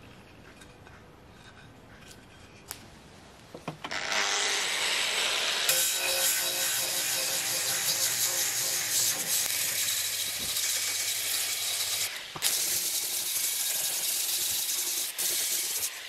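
Angle grinder with an abrasive disc grinding and shaping a block of walnut. It starts about four seconds in and runs loud and steady, with a brief dip partway through, until it stops just before the end.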